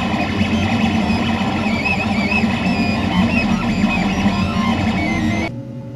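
Intro music with guitar, which cuts off about five and a half seconds in, leaving a quieter steady hum.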